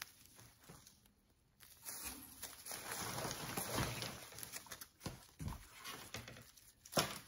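Rustling and light knocks of artificial floral picks and packaging being handled, with a sharper click near the end.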